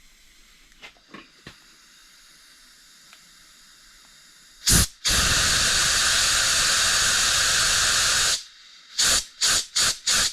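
Compressed-air blow gun blowing through the oil passages at the rear of a BMW N55 engine block to check that they are clear. A short puff comes about five seconds in, then a steady hiss of about three seconds, then a quick run of short puffs near the end.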